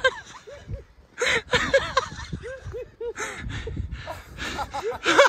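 Voices making short, high-pitched wordless calls and laughs, with bursts of breath noise between them.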